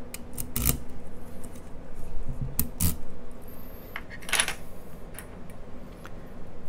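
Dimple key being pulled out of a Codkey L52 euro cylinder's keyway, with sharp metallic clicks from the spring-loaded pins, a pair near the start and another pair just before three seconds in, then a short scraping rustle a little after four seconds.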